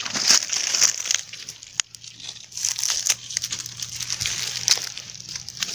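Footsteps crunching through dry fallen mango leaves, an irregular crackling rustle with sharp clicks.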